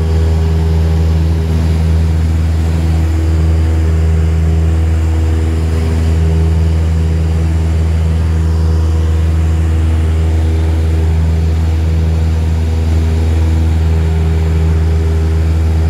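Propeller plane's engine and propeller heard inside the cabin, a loud, steady drone with a deep hum, running without change during the climb after takeoff.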